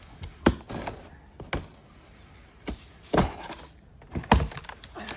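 A knife cutting open a cardboard shipping box: a series of sharp knocks and short scrapes as the blade slits the packing tape and the cardboard is pulled and handled.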